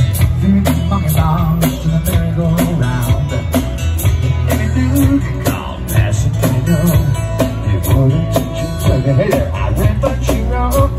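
A one-man band playing through a portable PA: strummed acoustic-electric guitar over a steady bass drum and cymbal beat, with singing.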